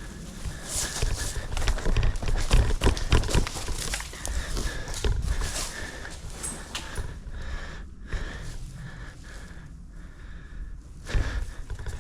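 Running footsteps thudding unevenly, with gear knocking and rattling, heaviest a couple of seconds in and lighter after.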